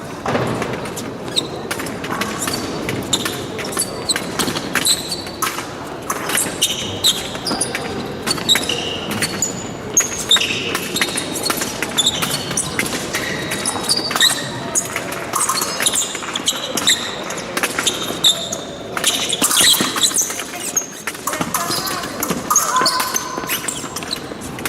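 Épée fencing bout on a piste: quick footwork thuds and stamps, shoe squeaks and sharp clicks of the blades, repeated many times, over a murmur of voices in a large hall.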